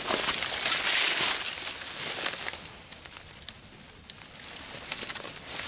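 Dry marsh grass and reeds rustling and crackling as they are pushed and trampled through. Loudest in the first couple of seconds, quieter around the middle, then picking up again near the end.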